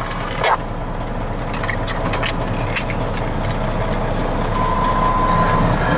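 Truck engine running steadily and slowly getting louder, with a brief thin whine about five seconds in.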